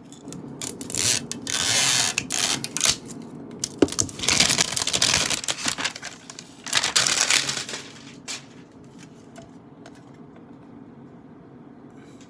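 A fragrance box being handled: several bursts of rustling and crinkling packaging with scattered clicks and knocks, dying down after about eight seconds.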